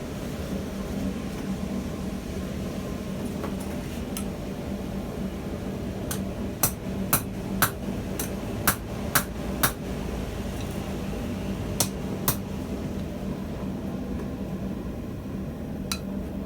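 Hammer blows on steel at the anvil while forging: a run of about eight ringing strikes roughly two a second, then two more and a single one near the end, over a steady low hum.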